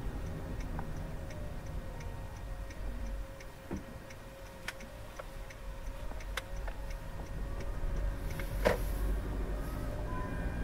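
Car's turn-signal indicator ticking, about three ticks a second, inside the cabin over the low rumble of the car driving. One sharper click comes about eight and a half seconds in.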